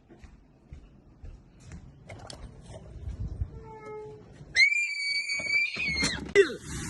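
A long, high-pitched scream, held at one pitch for about a second and a half past the middle, after a quiet start and a short lower-pitched cry.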